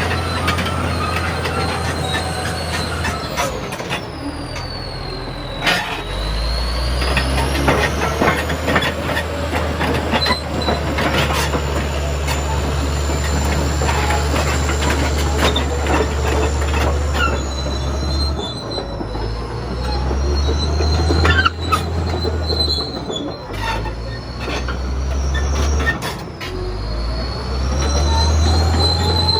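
Caterpillar D7H crawler bulldozer working: the diesel engine runs with a deep drone that changes pitch several times as revs and load change. The steel tracks squeal in long tones that glide up and down, with clanking and clicking throughout.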